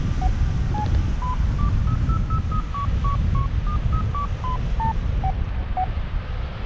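Paragliding variometer beeping over heavy wind noise on the microphone. The short beeps quicken and rise in pitch as the climb strengthens, then slow and drop back as the lift fades: the vario's signal for climbing in a thermal.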